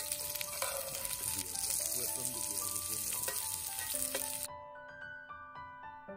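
Diced vegetables sizzling in a cast-iron skillet over a wood fire as a metal spatula stirs them. The sizzle cuts off suddenly about four and a half seconds in, leaving only background music, which plays under the frying as well.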